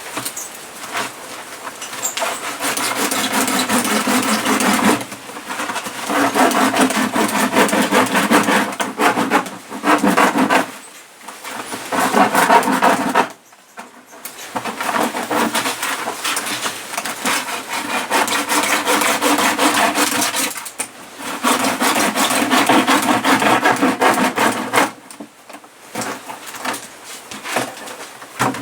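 A blade sawing through the hard plastic of a 20-litre water bottle: a steady scraping of quick cutting strokes in runs of several seconds, broken by a handful of short pauses.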